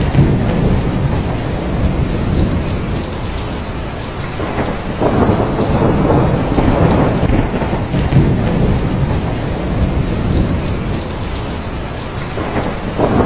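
Steady heavy rain with thunder rolling and rumbling underneath, the rumble swelling about five seconds in and again about eight seconds in.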